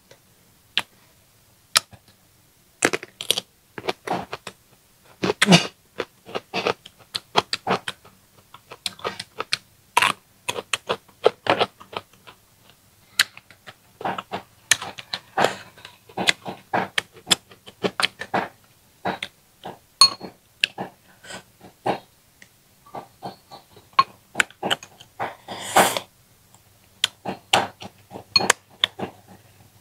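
Close-miked eating sounds: an irregular run of short clicks and smacks from chewing, with the small taps of chopsticks against the dish.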